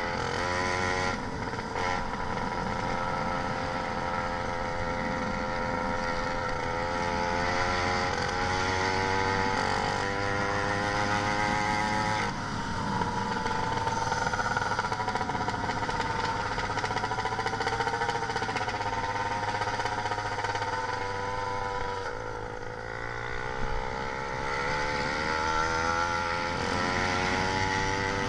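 YD 100 two-stroke bicycle engine running through a large expansion-chamber exhaust, its pitch climbing and easing off repeatedly. Around three quarters of the way through it sags briefly, both in pitch and level, before picking up again. The owner says the carburetor lacks the right jets and makes the engine bog.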